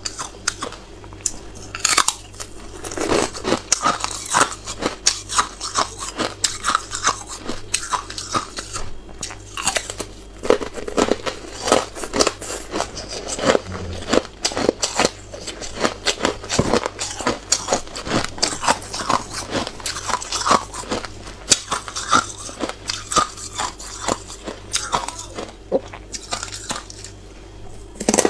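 Frozen buckwheat ice being bitten and crunched between the teeth close to the microphone: an irregular run of sharp crunches, several a second, with chewing between the bites.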